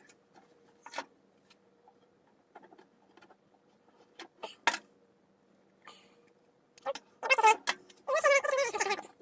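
Scattered light clicks and taps of small parts being handled, one sharper click about halfway through. Near the end come two wavering, pitched squeaks.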